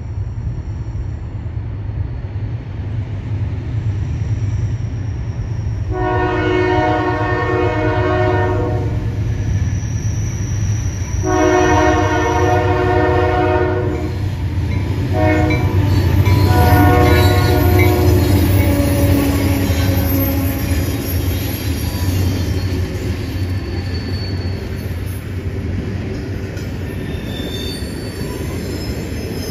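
Diesel freight locomotive sounding its multi-note air horn in the long, long, short, long pattern of a grade-crossing signal, over the steady rumble of the passing train.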